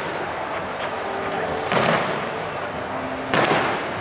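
Aerial fireworks shells bursting: two sharp bangs about a second and a half apart, each echoing away, over a steady background din.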